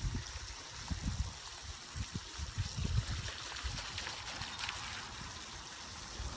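Water running out of an open garden hose and splashing as a puppy bites at the stream, with irregular dull low thumps.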